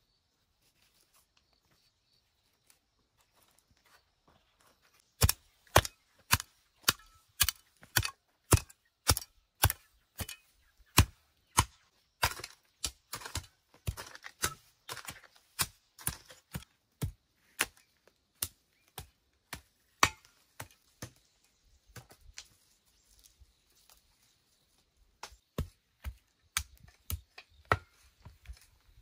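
Repeated chopping: sharp, evenly spaced strikes, about two a second, starting about five seconds in and turning weaker and less regular near the end.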